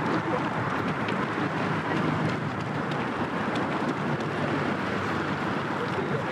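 Steady outdoor noise of a pack of road-race runners, with faint scattered footfalls and wind on the microphone.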